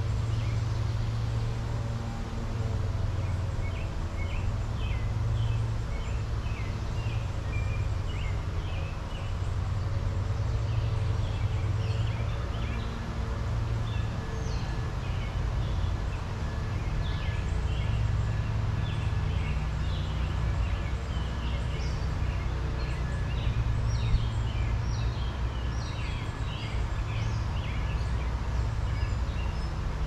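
Songbirds chirping in many short calls over a steady low rumble.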